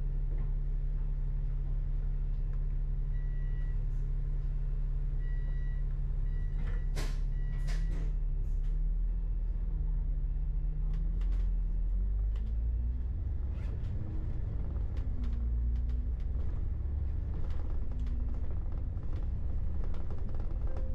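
Large diesel engine running steadily, its note shifting and settling into a lower rumble about halfway through. A few short high beeps sound in the first half, with scattered clicks and clacks throughout.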